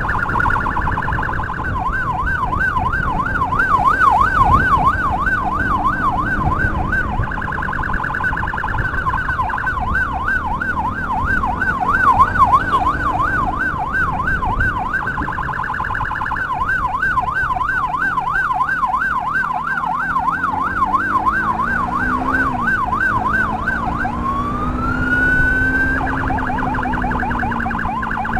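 Electronic emergency siren cycling in a fast yelp, about three rises and falls a second. It switches briefly to a faster warble now and then, and to a rising wail near the end. A motorcycle engine runs underneath, revving up around two-thirds of the way in.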